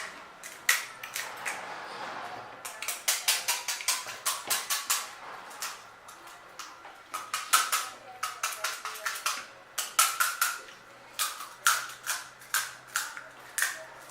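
Close-up crunching and chewing of pani puri: the crisp, hollow fried shells crack in several quick runs of sharp crunches, with short pauses between the runs.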